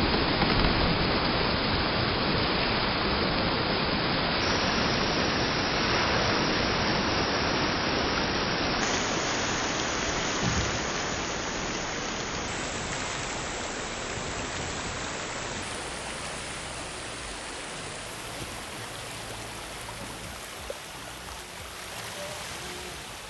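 Water from a burst above-ground pool rushing out across a grassy yard: a steady rushing that slowly dies down.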